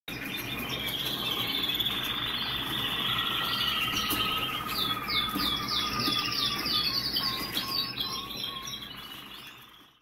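Canaries singing: rapid high trills and warbles, with a run of quickly repeated sweeping notes about halfway through. The song fades out near the end.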